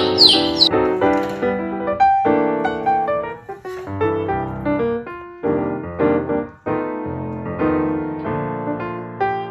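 Background piano music, a run of quick notes at a fairly steady pace. A few high chirps sound right at the start.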